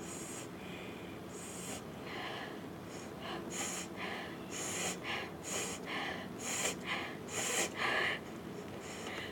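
A woman sniffing and snorting sharply through her nose with ghost pepper powder, trying to bring on a sneeze. There are about a dozen short sniffs, getting louder from about three seconds in.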